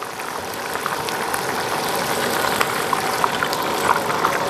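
Fresh shrimp deep-frying in hot oil in a wok: a steady bubbling hiss with many small crackles, growing slightly louder.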